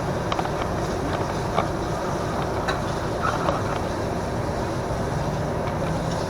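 Microwave oven running with a steady hum while cooking, with a few faint clicks.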